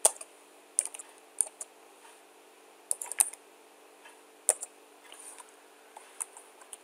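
Computer keyboard being typed on in scattered single keystrokes and short clusters of a few keys, with pauses between them.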